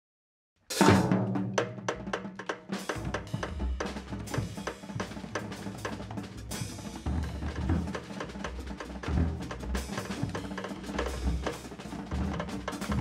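A large ensemble of winds, brass, strings and drum kits starts playing with a loud hit about a second in. Busy drum and cymbal strokes run over sustained low notes from the band.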